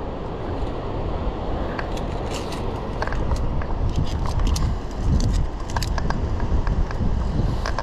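Via ferrata carabiners and lanyard clinking and rattling in a string of small metallic clicks as they are handled along the steel safety cable, over a steady low rushing noise that swells briefly midway.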